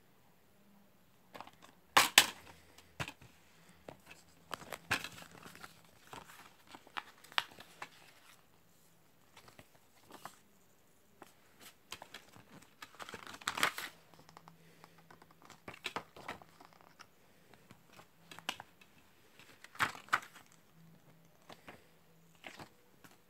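Plastic DVD case being handled and opened: irregular crinkling, clicking and rustling of plastic and paper as the disc and a paper insert are handled. The sharpest, loudest crackle comes about two seconds in.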